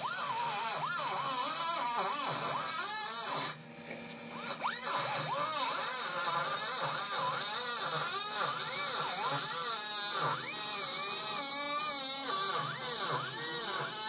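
Handheld cutoff tool with a small abrasive disc cutting into the sheet-metal cab corner of a 1955 Chevrolet pickup. Its high whine dips and recovers over and over as the wheel bites into the metal. It stops for about a second, three and a half seconds in, then restarts.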